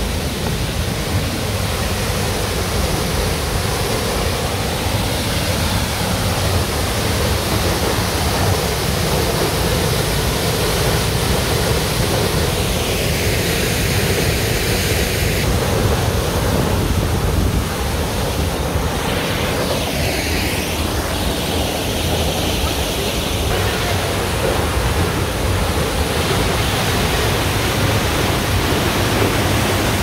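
Steady rush of water from the Harvalem waterfall, which is in good flow.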